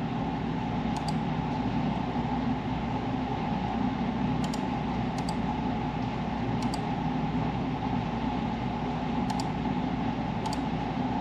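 Steady mechanical hum, with about six faint mouse clicks scattered through it as settings are changed in the CAM software.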